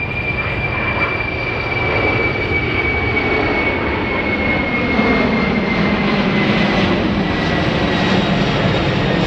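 Boeing 747-400 jumbo jet passing low overhead, its four turbofan engines giving a steady high whine that slowly falls in pitch over a rumble that grows louder.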